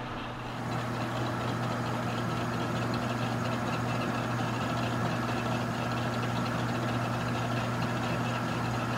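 Metal lathe running steadily, spinning a workpiece in its chuck with no cut being made, a constant motor-and-gear hum.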